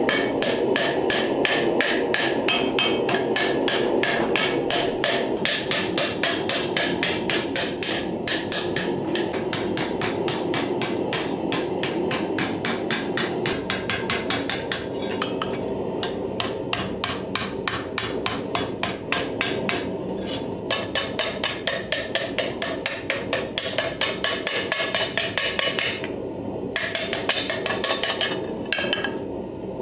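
Hand hammer repeatedly striking a hot steel ladle bowl into a cup of a cast-iron swage block, about four blows a second, dishing the bowl into shape. The rhythm breaks off briefly a few times. A steady background noise runs underneath.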